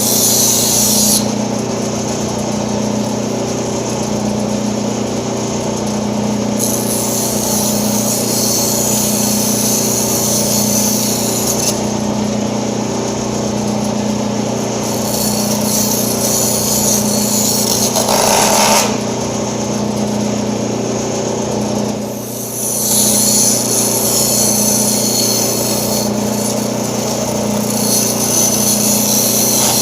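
Band saw running with a steady motor hum while its blade cuts high-density Styrofoam: a hissing rasp that starts and stops several times as the foam is fed through.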